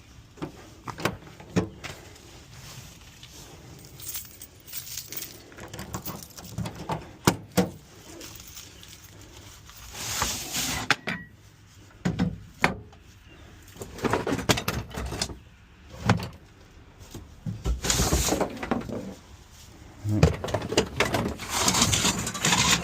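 Digging out a post hole by hand: irregular sharp knocks, then longer gritty scrapes and chunks of a digging tool working through the earth, coming more often near the end.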